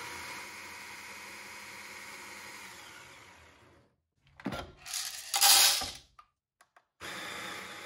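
Baratza Sette 270 burr grinder motor running to grind out the coffee left from the previous grind setting, a steady mechanical whir that fades away after about three and a half seconds. About a second later comes a short burst of louder, harsher noise, and the steady whir starts again about a second before the end.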